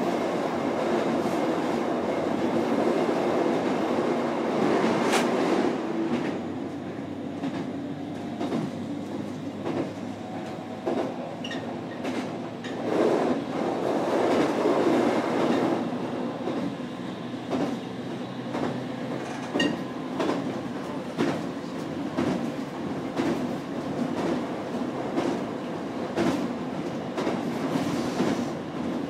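Electric commuter train running along the line, heard from inside the front car: a steady rumble with the wheels clicking now and then over rail joints, swelling louder a couple of times.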